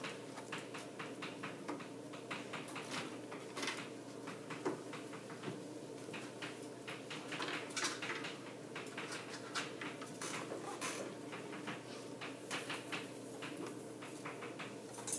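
Chalk on a chalkboard: irregular taps and short scratches as someone writes and draws, over a steady low room hum.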